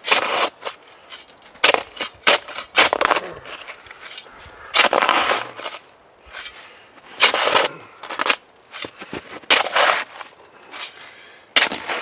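Digging out snow for a fire pit: a dozen or so irregular crunching, scraping strokes into packed snow, some sharp and brief, a few about half a second long.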